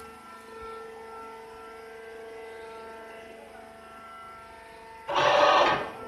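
Steady machine hum with a constant whine from the baling and lifting machinery, broken about five seconds in by a loud rushing noise lasting under a second.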